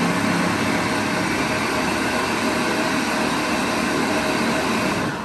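Ninja countertop blender running steadily at low speed, puréeing watermelon chunks in water for agua fresca. It switches off at the very end and winds down.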